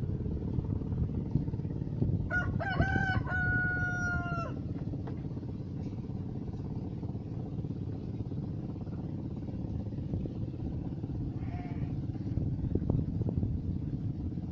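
A rooster crows once, about two seconds in: a few short notes ending in a long held note that drops at the end, over a steady low rumble.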